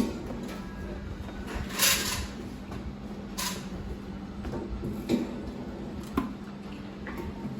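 Massage handling sounds: two short brushing rubs of hands over skin or hair, the first the loudest, then a couple of soft clicks, over a steady low hum.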